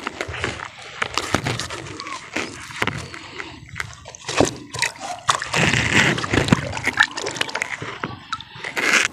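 Shallow lake water splashing and sloshing in irregular bursts as a green mesh keep net holding a freshly caught tilapia is handled in it, loudest about the middle and again near the end.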